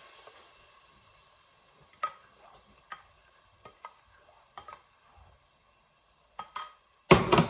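Whisk clicking and scraping against a pot as flour and melted butter are stirred into a roux paste, with a faint sizzle fading in the first second. Scattered single clicks, then a louder burst of scraping and knocking near the end.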